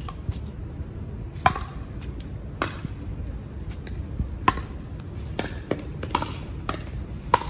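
Pickleball paddles hitting a plastic ball back and forth in a rally: a series of sharp pops, irregularly spaced, some under a second apart.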